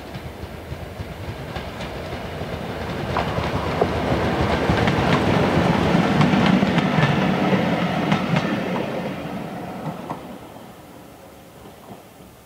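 A Southern Region 'Thumper' diesel-electric multiple unit passes: its diesel engine throbs and its wheels clickety-clack over the rail joints. The sound builds to a peak about halfway through and fades as the train goes away.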